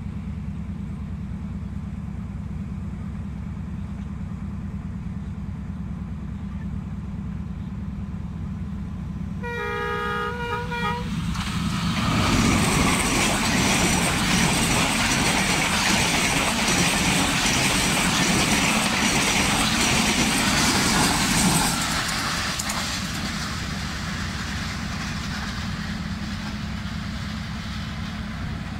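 A ZCU diesel locomotive sounds a short horn blast about ten seconds in, then the express train passes at high speed, its coaches making a loud rush and clatter on the rails for about ten seconds. The noise then drops abruptly to a lower steady rumble.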